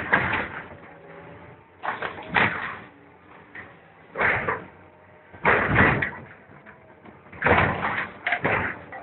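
Hydraulic demolition shear on a crawler excavator cutting and tearing the steel hull of an old barge: five loud bursts of rending metal, one every one to two seconds, with quieter gaps between.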